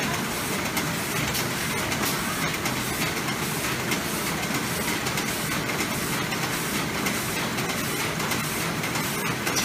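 Several plastic bag-making machines running together in a factory: a steady mechanical clatter full of rapid clicks as the film is fed, sealed and cut into bags.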